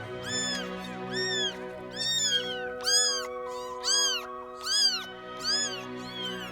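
Kittens mewing over and over, short high-pitched mews rising and falling in pitch, about one a second, some overlapping.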